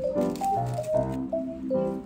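Background music: a light melody of short, changing notes over a bass line.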